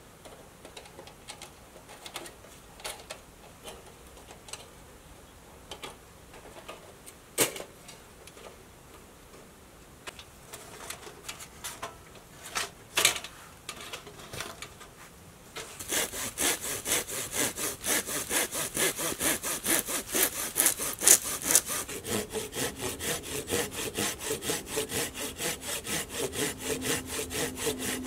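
A few scattered metal clicks and knocks as the panels of a folding wood stove are fitted together. About halfway through, a hand saw starts cutting through a log in quick, even strokes, which continue to the end.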